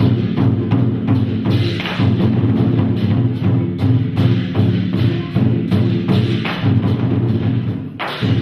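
Traditional Taiwanese temple ritual percussion: drums and other struck instruments beaten in a fast, steady rhythm.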